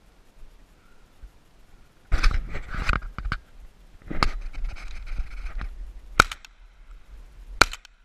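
Two sharp shotgun shots about a second and a half apart near the end. Before them come stretches of scuffling, rustling noise.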